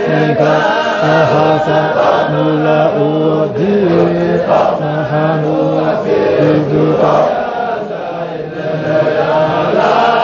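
A group of men chanting a Sufi Qadiriyya dhikr in unison, holding low sustained notes and repeating a short phrase over and over.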